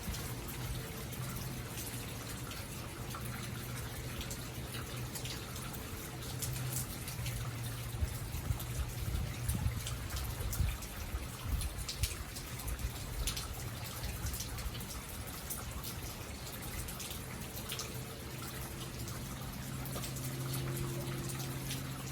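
Rain falling, with scattered drips and drop hits, over a steady low hum from a Hampton Bay Veranda outdoor ceiling fan running.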